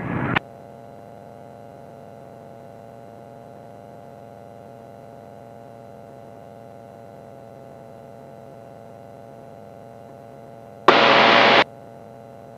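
Steady hum with a few faint steady tones on the aircraft's radio/intercom audio feed. About eleven seconds in, a loud burst of radio static lasting under a second cuts off sharply, like a transmission keyed without a voice.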